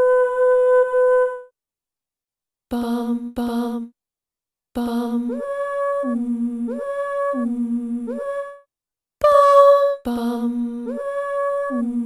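Realivox Blue sampled female voice, played in Kontakt, singing short wordless syllables. A held note fades out, then two short low notes sound, then runs of notes switch back and forth between a low and a higher pitch with short legato slides up between them, separated by brief silences.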